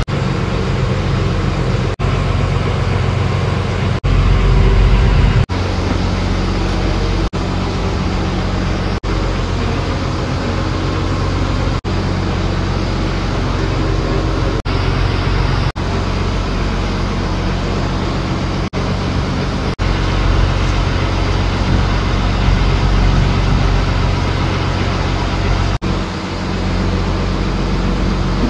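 Fishing boat's diesel engine running steadily under way, a low even drone with the rush of the boat through the water. The sound breaks off for an instant every few seconds where clips are joined.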